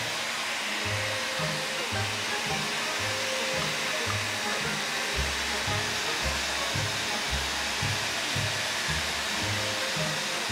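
Handheld hair dryer blowing steadily onto a dog's thick wet coat. Background music with a regular bass line plays underneath.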